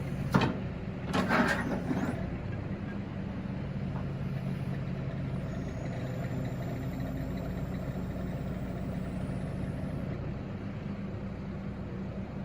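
Diesel engine of a CAT 313DCR excavator running steadily, with a few sharp knocks in the first two seconds.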